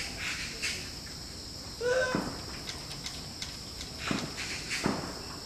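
Monkey giving one short rising-and-falling call about two seconds in, over a steady high hiss, with two faint knocks near the end.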